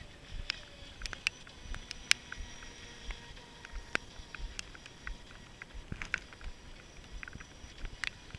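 Faint high-pitched whine of a distant RC speedboat's brushless electric motor running out on the water. Irregular sharp ticks sound close to the microphone, over a low wind rumble.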